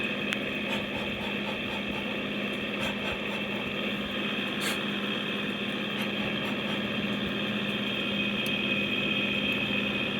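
LG window air conditioner running, its fan motor giving a steady hum with a high, constant whine over it; the owner says the fan motor's bearings are shot.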